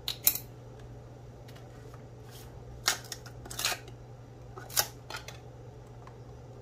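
A few short plastic and metal clicks and rattles as kitchen containers are handled, over a steady low hum.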